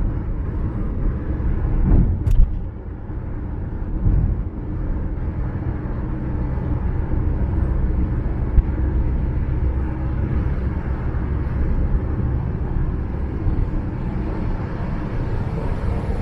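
Steady low road rumble of a car driving at highway speed, from its tyres and engine. A single sharp click comes about two seconds in.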